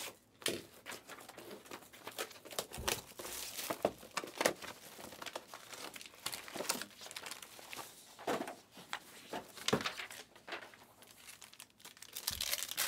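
Clear plastic shrink-wrap crinkling and tearing as it is stripped off a sealed trading-card box, in irregular crackles throughout.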